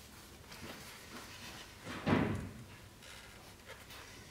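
Handling of a wrapped sword scabbard at a workbench: quiet rubbing and rustling, with one short dull knock about two seconds in.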